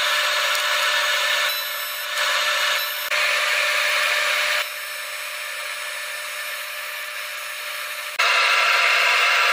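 Steady hiss and buzz of shop work in short edited clips, changing abruptly at each cut; the loudest stretches are a TIG welding arc on aluminium intercooler pipe.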